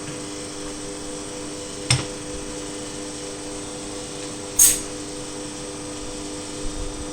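A machine's steady hum with a few fixed tones. There are two sharp clicks, one about two seconds in and a louder one past the middle.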